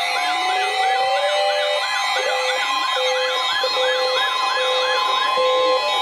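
Several NOAA weather alert radios sounding their alarms at once for a severe thunderstorm warning. Warbling, siren-like chirps repeat about three times a second over a slow rising and falling sweep and short beeps about twice a second, and a long steady high alert tone joins about two and a half seconds in.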